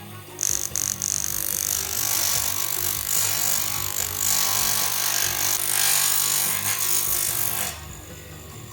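Abrasive shaping of a knife's plastic handle to fit the blade: a loud, even scraping hiss that starts about half a second in with a few clicks and stops abruptly near the end.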